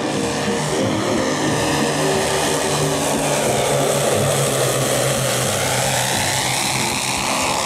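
Propellers of a large twelve-engine radio-controlled Dornier Do X flying-boat model droning steadily in a low fly-by, the pitch shifting as it passes near the end.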